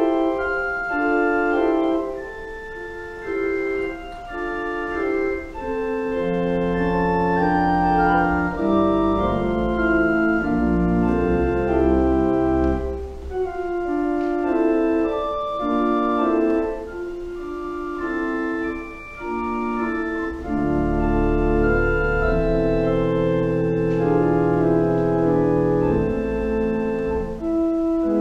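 Church organ playing held chords with a moving upper line. Deep pedal bass notes come in about six seconds in and again from about twenty seconds in.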